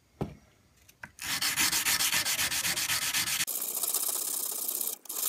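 Sandpaper being rubbed by hand along the bevel of an oiled steel knife blade: rapid, even back-and-forth strokes starting about a second in, with a short break near the end. A light knock comes just before the sanding starts.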